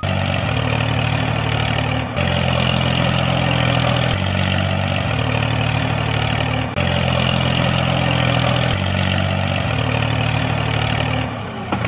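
Tractor engine sound running steadily at a low, even pitch, with small abrupt shifts in its note every couple of seconds. It drops away just before the end.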